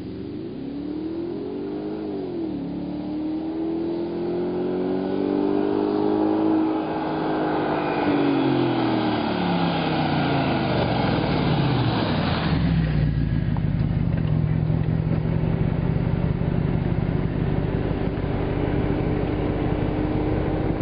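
2005 Audi A6 4.2's V8 exhaust, its rear mufflers replaced by Magnaflow resonated tips, on a high-speed drive-by. The engine note climbs with a brief dip about two seconds in, then falls as the car closes in. It rushes past about twelve seconds in and carries on as a steady lower drone with deep rumble.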